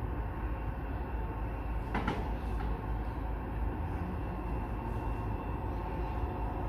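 Distant diesel locomotive approaching, heard as a steady low rumble, with a single sharp click about two seconds in.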